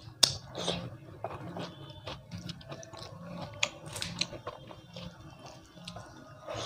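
Close-miked chewing of dal and rice, with wet mouth clicks and smacks coming several times a second; a sharp click about a quarter second in is the loudest.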